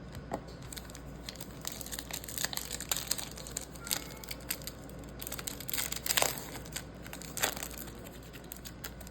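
A plastic trading-card pack wrapper crinkling and tearing as it is opened and handled, an irregular run of crackles with the loudest about six and seven and a half seconds in.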